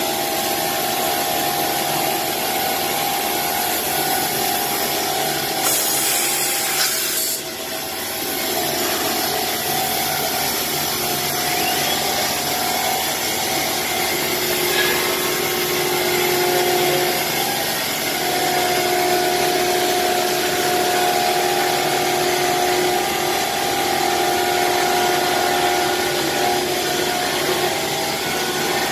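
CNC router running and cutting sheet material, a steady whine with two held tones over a dense cutting noise. A burst of high hiss comes about six seconds in and lasts over a second.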